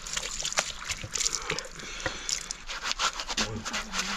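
Water dribbling and splashing in uneven spurts, with many irregular drips: a water supply whose flow keeps coming and going.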